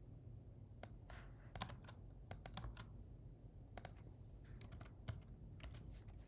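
Faint typing on a computer keyboard: irregular keystrokes in short runs.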